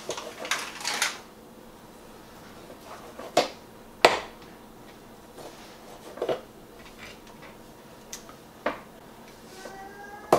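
Kitchen knife slicing raw chicken breast on a plastic cutting board: separate knocks of the blade hitting the board, a quick cluster in the first second and then single ones every second or two, the sharpest about four seconds in.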